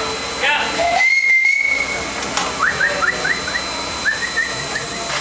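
Steady steam hissing from live-steam miniature locomotives being prepared, with one short, high whistle tone about a second in. Several quick rising chirps follow.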